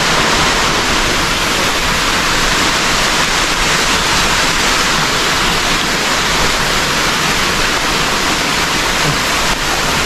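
Steady, loud rush of water, an even hiss that does not change.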